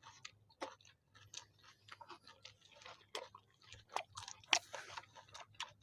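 Faint, close-up chewing: irregular soft crunches and wet mouth clicks as food is bitten and chewed.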